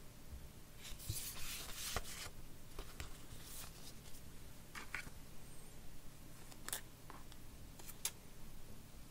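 Hands handling a smartphone box and its packaging: a rustle about a second in, then scattered light clicks and taps.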